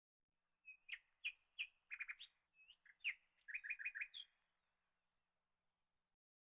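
A small bird chirping: a string of short, sharp chirps and quick repeated trill notes lasting about three and a half seconds.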